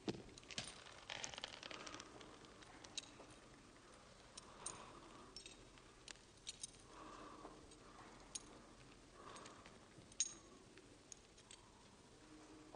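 Near silence broken by faint, irregular clicks and light metallic jingles a second or two apart: boot heels with metal plates and buckled straps moving.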